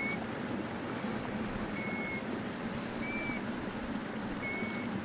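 Steady wash of water at a shallow, stony lakeshore, with a bird's short, flat whistled note repeating four times at uneven intervals of roughly one to one and a half seconds.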